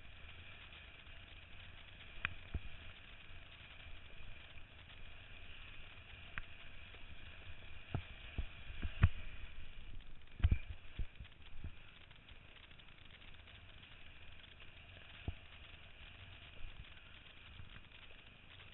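Muffled steady rush of water and wind as a kiteboard skims over choppy sea, with scattered sharp thumps of the board slapping the chop, the loudest about nine and ten and a half seconds in.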